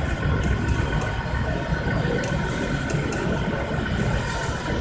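Steady background din of a busy exhibition hall: a low rumble with a faint steady hum and a few faint clicks.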